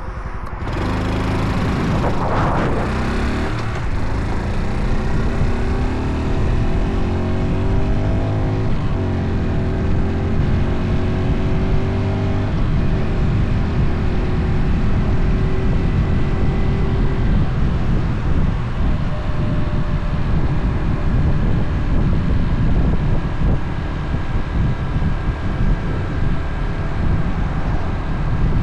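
Motorcycle engine pulling away from a stop, its note rising several times as it picks up speed over the first dozen seconds, then running steadily at cruising speed under heavy wind rush on the microphone.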